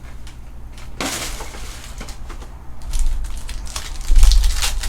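Trading-card pack wrapper crinkling and cards being handled, a crackly rustle with small clicks. There are dull low thumps about three and four seconds in, the second the loudest.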